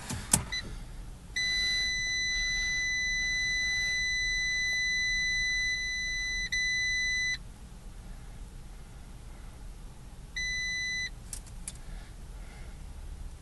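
2012 Fiat 500 dashboard warning chime: a steady high beep lasting about six seconds, with a short break near its end, then one short beep a few seconds later. It is the instrument-cluster alert that comes with the low-tire-pressure warning. A click comes just before the first beep, and two more clicks come right after the short one.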